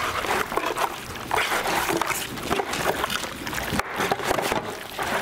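Hands squishing and turning marinated bison rib pieces in a disposable aluminium foil pan: wet squelching with irregular crackles.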